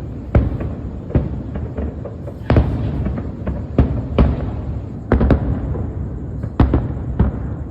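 Aerial fireworks display: a string of sharp booms at irregular intervals, roughly one a second, over a continuous low rumble of further bursts.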